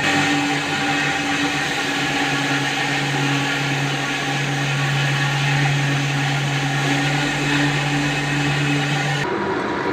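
Electric power tool running steadily, a motor hum under a broad grinding hiss. It cuts off abruptly about nine seconds in, and a duller, lower machine sound takes over.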